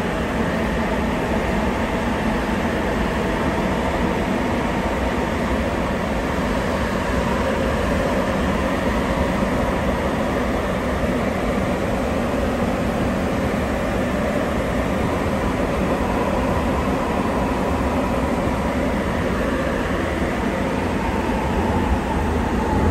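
Sapporo subway Tōhō Line train running through the tunnel, heard from inside the car: the steady rumble of its rubber tyres with a faint motor whine.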